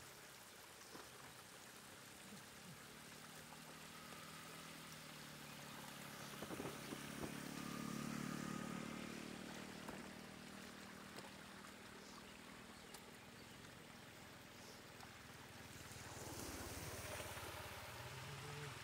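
Shallow floodwater trickling over a muddy road, with a few light splashes as fish are picked up by hand. A low rumble swells and fades about seven to nine seconds in.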